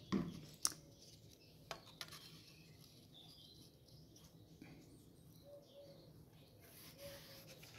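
Quiet handling of paper and card: a few light taps in the first two seconds, then soft rubbing near the end as glued kraft paper strips are pressed flat onto cardstock. A few faint short chirps sound in the background.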